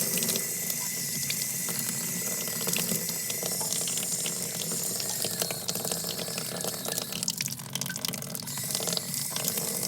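Kitchen sink faucet running steadily, with water splashing over broken plastic pieces being rinsed under it. The tap shuts off just after the end.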